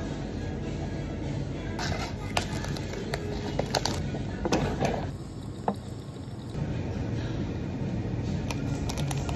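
Rustling, crinkling and clicking of a paper instant-noodle cup and its lid being handled and peeled back, heaviest between about two and five seconds in, over a steady low background hum.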